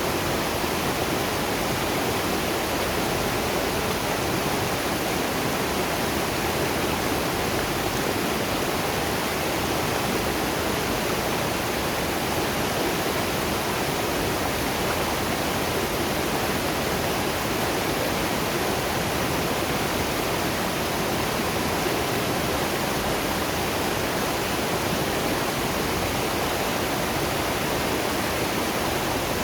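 Waterfall and river water rushing in a steady, unbroken noise.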